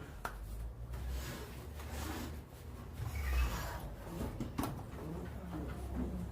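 Rubbing and scraping handling noises, with two sharp clicks, one just after the start and one a little past halfway.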